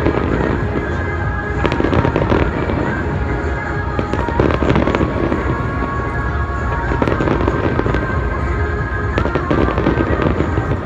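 Large fireworks display: a continuous barrage of shells bursting, a rumble of booms and crackle with sharper bangs standing out every second or two, and music playing along.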